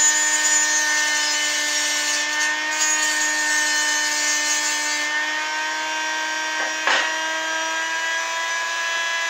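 Engraving machine cutting letters with a diamond tool: a steady motor whine with a high scratching hiss, with one brief sharper scrape about seven seconds in.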